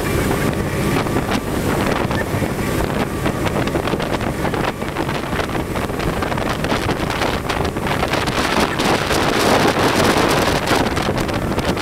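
Motorboat running at speed: a steady engine drone under the rush of water from its wake, with wind buffeting the microphone throughout, a little louder near the end.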